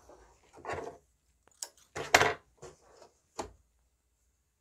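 Cotton fabric pieces being handled on a wooden tabletop: short, uneven rustles and sliding, with a few knocks and clicks, the loudest about two seconds in. Then it goes quiet.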